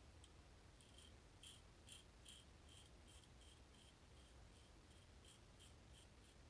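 Safety razor scraping through beard stubble in short, quick strokes, about three a second: a faint, dry, crisp ticking.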